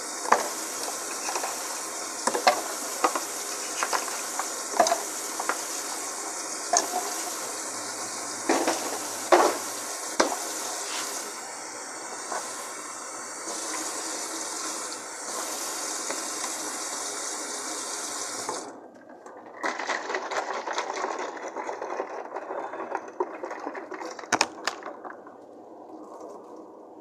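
Water rushing and splashing with ice cubes clinking against a cup. The steady rush stops suddenly about 18 seconds in, leaving softer crackling and a few clinks.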